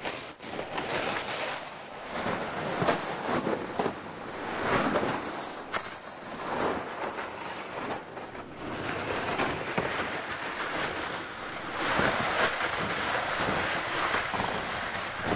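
Loaded plastic gear sled dragged over about six inches of snow and through brush, its hull swishing and scraping, with footsteps crunching in the snow; the rushing noise rises and falls as the haulers pass close by, with a few sharp snaps or knocks.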